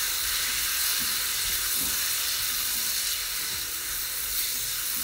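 Tomato masala with paneer cubes sizzling in a hot kadai as it is stirred: a steady frying hiss.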